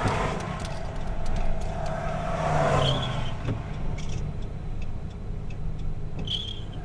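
Car driving, with steady engine and road noise and two rising-and-falling swells of rushing noise. A short high chirp is heard twice.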